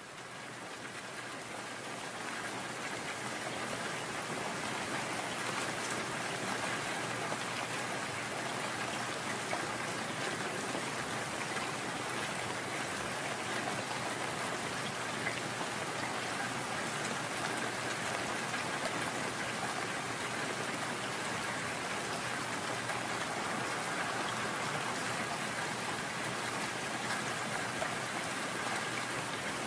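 Steady rain, a dense even patter with no thunder, fading in over the first few seconds and then holding level.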